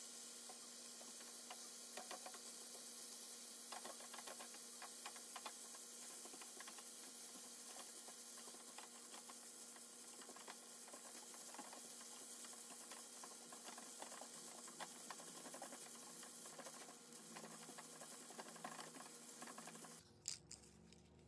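Thin-sliced pork and rice sizzling with butter in a nonstick frying pan, with frequent short clicks and scrapes of a utensil stirring the rice. The sizzling cuts off suddenly near the end.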